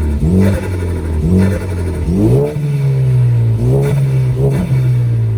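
Ford Focus ST's turbocharged 2.0-litre EcoBoost four-cylinder revved in about five quick throttle blips, the engine rising and dropping back each time. On each lift-off the freshly fitted Go Fast Bits DV+ diverter valve releases boost, set to flutter up to about 3,000 rpm and vent above that, heard mainly through the intake.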